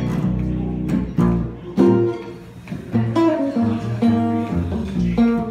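An archtop guitar strums chords over a plucked upright double bass. The chords strike about once a second, and from about two seconds in the bass plays a line of separate low notes under them.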